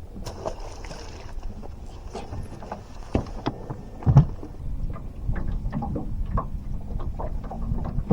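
Irregular knocks and clatter on a fishing boat over a low rumble, with one heavy thump about four seconds in and a low steady hum joining about a second later.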